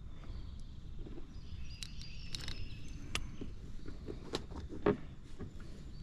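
Handling noise in a plastic kayak as a fish is unhooked: scattered light clicks and knocks, the sharpest a little before the end, over a low rumble. Faint high bird chirps sound about two seconds in.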